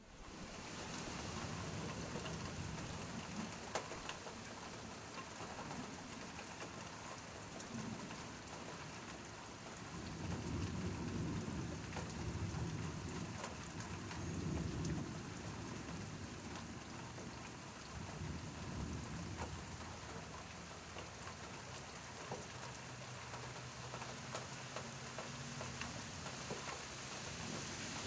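Steady rain with a few low rolls of thunder swelling and fading through the middle; the sound dips and comes back up right at the start.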